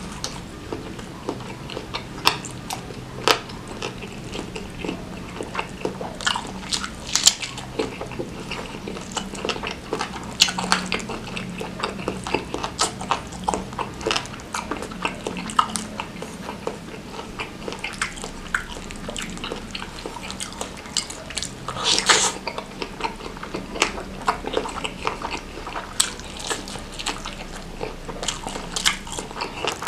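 Close-up biting and chewing of a beef tendon meatball in chili sambal, with wet mouth clicks and crunches from the gristly cartilage inside.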